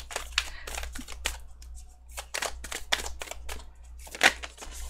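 A deck of tarot cards being shuffled by hand: an uneven run of quick card slaps and clicks, with one louder slap near the end.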